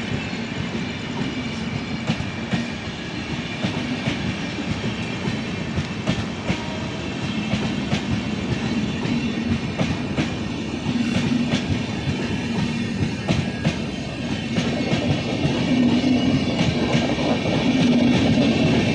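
Express train's passenger coaches passing at speed, a steady rumble of wheels on rail with rapid clickety-clack clicks over the rail joints, growing louder in the last few seconds.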